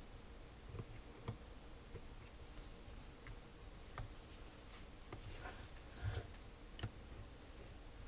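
Faint, scattered clicks and taps of a screwdriver against a plastic 18650 battery holder and its cells as it is handled and worked on, about half a dozen irregular clicks.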